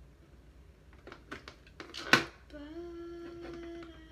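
A few small plastic clicks and taps as action-figure parts are handled, the loudest about two seconds in, followed by a boy humming one steady note for about a second and a half.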